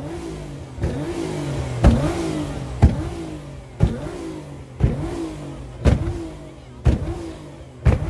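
Modified car engine revved in short blips about once a second, each with a sharp exhaust bang and a note that rises and falls, from a pops-and-bangs tune that shoots flames from the exhaust.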